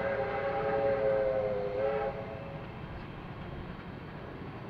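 A train sounds one long, chord-like warning blast that cuts off about two seconds in. A low rumble from the approaching train carries on after it.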